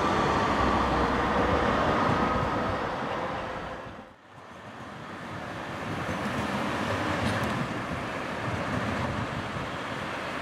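Tram running along its track with a faint whine, dying away about four seconds in; then the rail rumble builds again and holds steady, with wind on the microphone.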